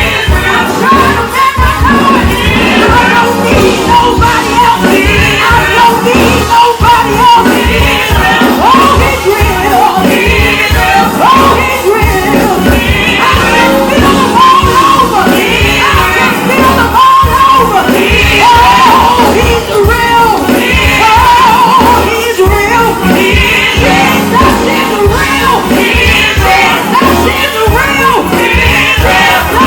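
Live gospel worship band playing loudly with singers over a dense, steady beat.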